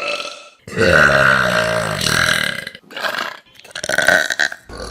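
A person burping: one long, loud belch of about two seconds, starting under a second in, followed by shorter bursts.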